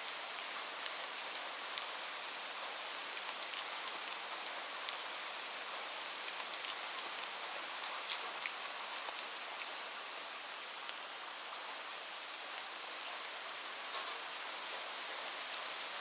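Light rain falling steadily, a soft hiss with scattered individual drops pattering on a surface.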